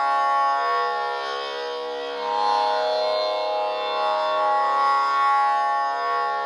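A steady Carnatic sruti drone, one unchanging pitch with its overtones shimmering and swelling gently.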